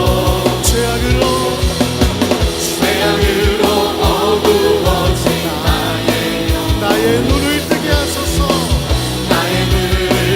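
Contemporary worship band playing a loud passage with a steady drum beat, bass and sustained guitar or keyboard notes, with little or no singing.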